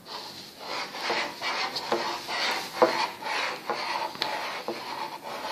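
Pen scratching across paper in short, irregular strokes, with a few sharper ticks, as a polygraph exam is being recorded.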